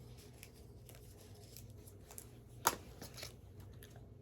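Clothing being handled: faint rustling of a shirt's fabric, with one short, sharper rustle about two and a half seconds in and a smaller one just after.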